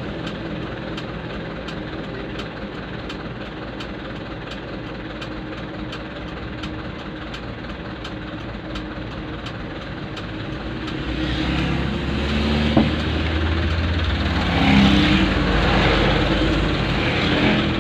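Truck's diesel engine idling, heard from inside the cab, with a light regular ticking. From about eleven seconds in, passing traffic outside adds a louder low rumble and the swell of motorcycles going by.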